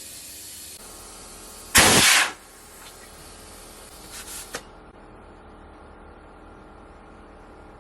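Compressed air hissing steadily, then a loud half-second blast as the bead seater tank's air is dumped into the backhoe tire to seat the bead, about two seconds in. The hiss carries on and cuts off at about four and a half seconds.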